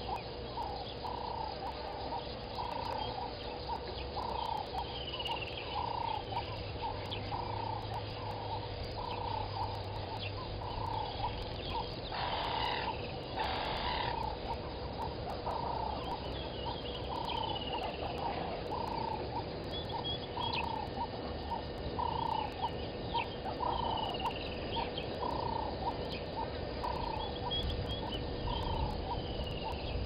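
Wildlife calls at a waterhole: a low call repeated steadily, about three every two seconds, with a higher, falling bird call every few seconds. A brief rush of noise cuts in about halfway through.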